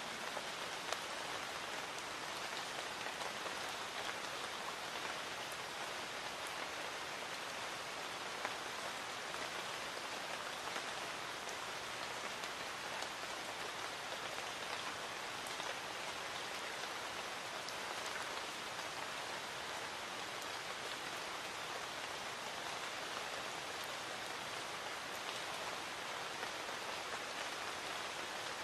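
Light rain falling steadily: an even hiss with a few louder drops tapping now and then.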